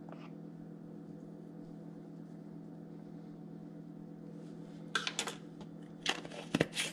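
A steady low hum, then from about five seconds in a handful of sharp clicks and taps as a plastic spice jar and a measuring spoon are handled over a bowl, the jar's cap being screwed back on near the end.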